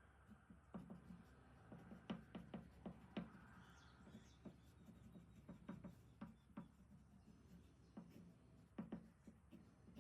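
Faint, irregular light taps and clicks of small objects being handled at a woodworking bench.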